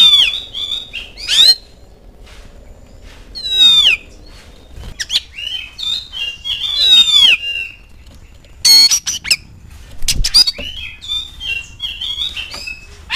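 Oriental magpie-robin (kacer) singing loudly in a run of phrases: clear whistles, several sweeping downward glides and scratchy chattering notes, with a few short harsh calls about two-thirds of the way through.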